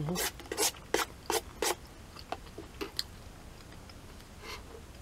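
Eating sounds from a cup of udon curry soup: a quick run of about five short slurps or sips in the first two seconds, then a few softer mouth clicks and one faint sip near the end.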